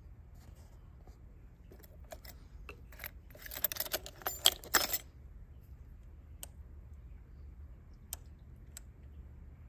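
Bunch of keys jangling on the key ring as the ignition key of a Kawasaki 250TR Bison is turned in its switch, a quick clatter about three to five seconds in, then a few single clicks. Ignition switched on with the engine not running.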